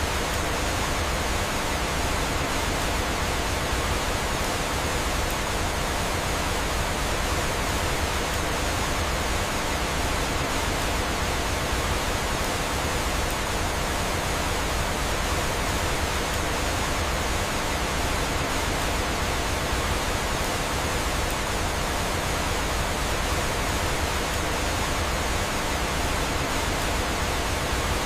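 Waterfall: an unbroken rush of falling water, an even hiss that does not change.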